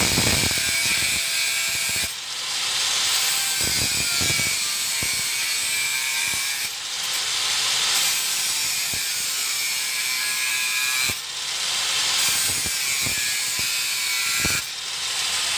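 Angle grinder fitted with a 125 mm, 0.8 mm thin cutting disc cutting through metal: a loud, steady, high-pitched grinding hiss that eases off briefly four times.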